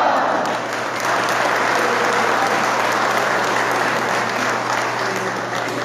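A crowd applauding, dense steady clapping from many hands.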